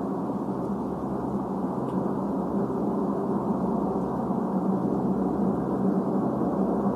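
Steady, low, droning hum of held deep tones over a hiss, unchanging throughout: the kind of unexplained 'strange sound in the sky' that witnesses call trumpet- or horn-like.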